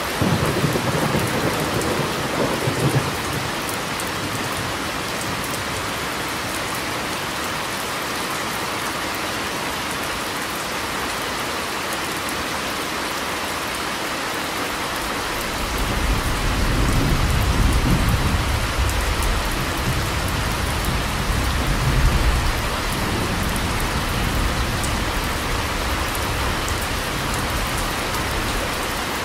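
Steady rain with two rolls of thunder: a short one right at the start and a longer one beginning about halfway through.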